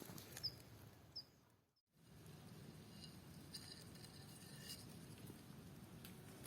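Near silence: faint outdoor ambience with a few faint, short high chirps in the first two seconds, then a brief total dropout followed by quiet hiss and a few soft clicks.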